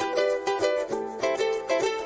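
Background music: a light plucked-string melody of quick notes, several a second.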